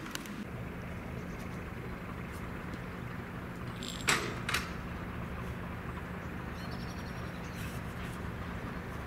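Diesel locomotive engine running steadily with a low hum, with two sharp knocks a little after four seconds in, the first louder.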